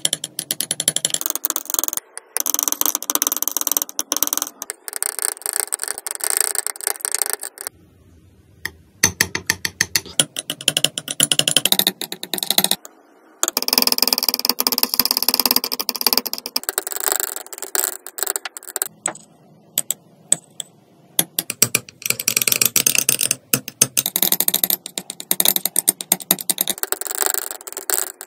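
Metal palette knife mixing thick paint in a palette well: rapid clicking and scraping as the blade works the paint, in several bursts with short pauses between them.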